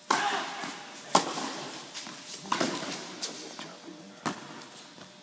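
Tennis ball struck by rackets and bouncing during a rally in an indoor tennis hall: about five sharp pops, each with a short echo. The loudest comes about a second in.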